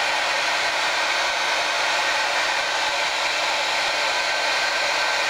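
Hand-held hot-air blower running steadily with an even airflow rush, aimed at small capacitors to warm them while fault-finding on the board.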